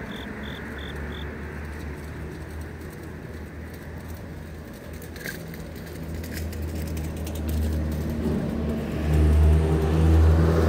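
A motor vehicle's engine hum grows steadily louder from about halfway through and is loudest near the end as the vehicle comes close. At the start, a grass insect gives a few short high chirps in even rhythm, and a couple of sharp clicks come in the middle.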